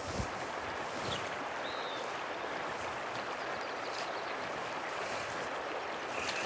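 Slow, shallow mountain stream flowing with a steady, soft wash of water, with a brief high chirp about two seconds in.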